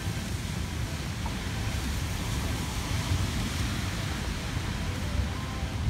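Wind buffeting the microphone: an uneven low rumble over a steady outdoor hiss.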